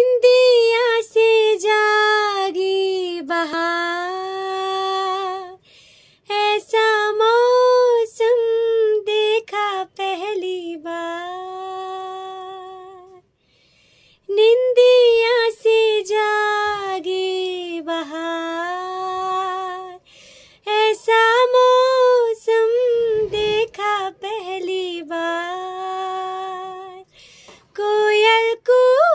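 A woman singing unaccompanied, a slow melody of long held, wavering notes in phrases of about six seconds with short breaths between them.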